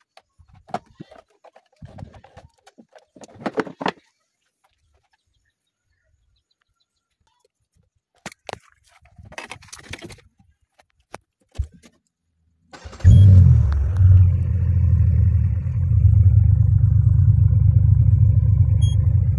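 A few scattered clicks and knocks, then, about thirteen seconds in, the Peugeot 307 CC's engine starts and runs steadily.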